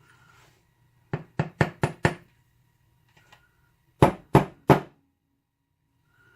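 Sharp knocks, five in quick succession and then three more, from a gutted pin-tumbler lock's housing being rapped to free a stubborn spring from its pin chamber.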